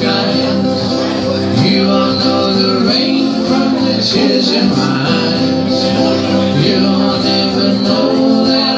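A man singing live into a microphone while playing an acoustic guitar.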